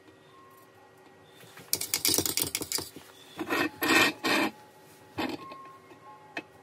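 Scratchy rubbing and scraping noises in several short bursts, about two seconds in and again up to about five seconds, from hand work at a soldering bench. A faint steady hum runs underneath.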